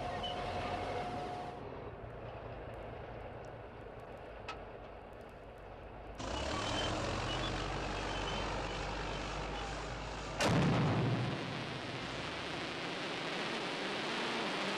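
Film soundtrack of a crawler bulldozer's diesel engine running, then a louder even rushing noise from about six seconds in, broken by a sudden loud burst about ten seconds in.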